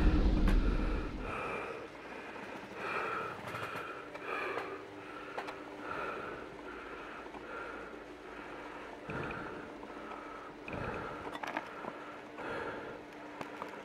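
A person breathing hard in short gasping breaths, about one every second and a half, over a faint steady hum. A low rumble fades away in the first second or so.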